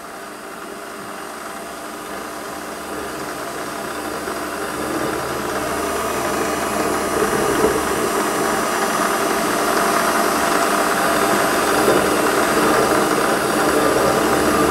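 Warco WM180 bench lathe running at raised speed while a centre drill in its chuck cuts into a metal block: a steady motor and spindle whine mixed with cutting noise that grows steadily louder as the drill is fed in deeper.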